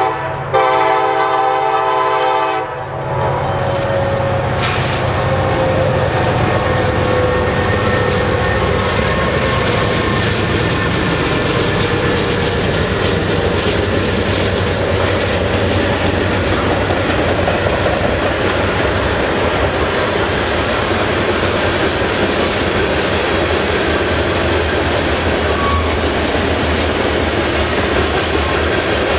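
Nathan K5LLA five-chime air horn on a CN SD70M-2 diesel locomotive sounding a blast for the grade crossing that cuts off about three seconds in. After that comes a steady, loud passing freight train: the diesel locomotives and then the freight cars rolling by close at hand.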